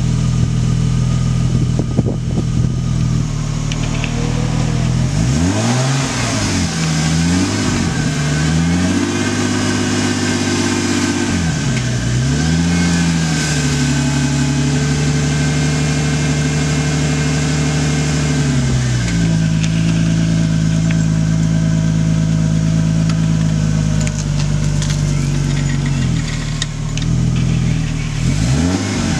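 BMW E36 engine running at idle, its speed dipping and recovering several times and settling at slightly different steady speeds in between.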